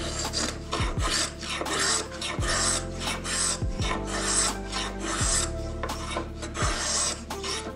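Small wooden hand plane shaving hard maple: a run of short, quick hissing strokes in a steady rhythm as the blade takes thin shavings.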